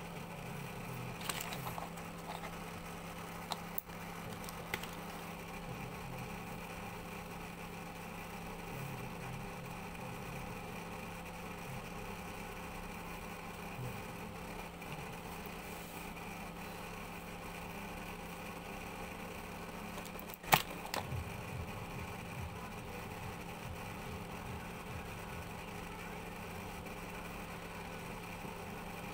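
Engine idling steadily, with one sharp click about two-thirds of the way through.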